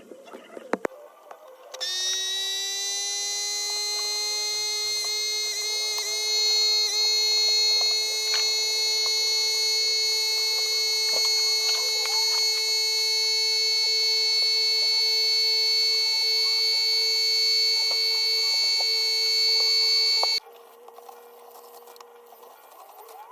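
A steady, high buzzing tone that rises slightly in pitch as it starts about two seconds in, holds for some eighteen seconds, and cuts off suddenly.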